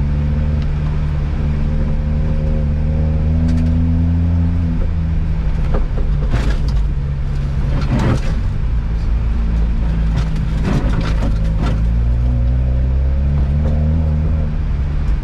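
Ford Fiesta ST engine heard from inside the cabin, pulling at steady revs on a loose gravel road. The engine note drops away about five seconds in and picks up again near the ten-second mark, with brief rushes of tyre and gravel noise in between.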